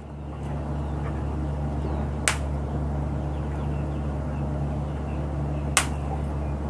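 Two sharp firecracker pops, about three and a half seconds apart, over a steady low hum.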